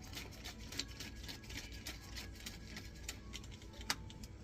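Scattered light clicks and taps of small metal and plastic parts being handled, with one sharper click near the end, over a faint low hum.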